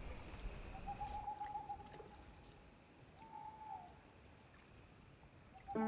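Faint night-time ambience from a film soundtrack: a steady high chirring throughout, with two long, thin whistle-like tones in the middle, the second dropping in pitch at its end.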